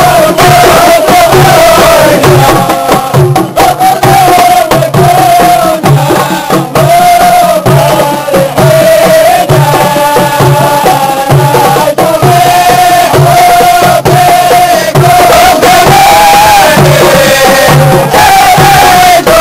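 A group of men chanting a song in unison while beating hand-held frame drums in a steady rhythm, with a drum stroke a little over once a second under the held, winding melody.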